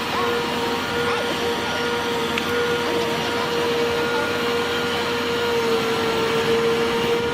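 A machine running steadily, with a constant whine held at one pitch over a steady mechanical noise.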